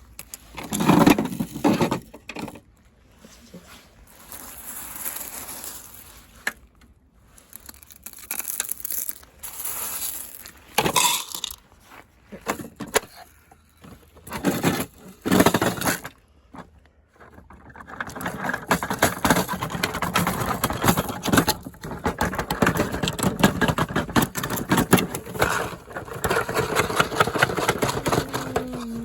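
Washing machine being run to destruction: irregular heavy bangs and scraping, then from about two-thirds of the way in a long spell of dense, fast rattling as the drum spins hard, with the motor's pitch starting to fall near the end as it winds down.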